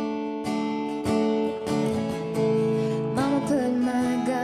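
Background music: a slow song carried by strummed acoustic guitar with held notes.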